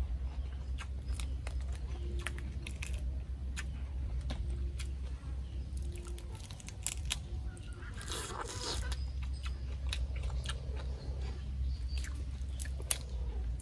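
Close-miked eating of boiled tiger prawns: chewing with many small wet clicks, and the shell being peeled off by hand, with a louder crackle about eight seconds in. A steady low hum runs underneath.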